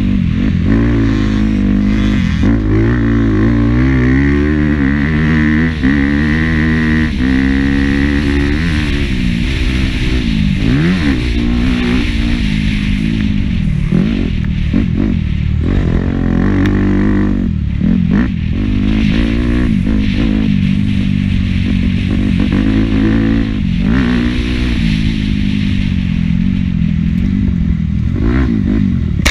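Dirt bike engine heard close up from the bike, revving up and falling back over and over as the rider accelerates, shifts and rolls off through the turns, with a few knocks from the bike over rough ground.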